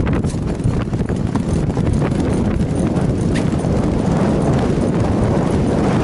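Racehorses galloping on a turf track, heard from the saddle: a dense, steady drumming of hoofbeats in the first strides after leaving the starting gates.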